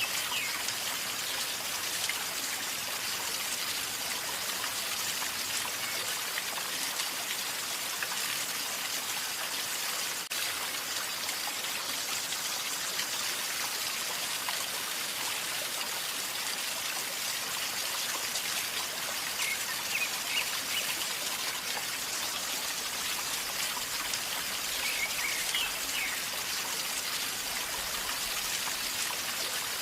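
A calmly flowing river gurgling and trickling steadily, with a few faint short high chirps about two-thirds of the way through and again near the end.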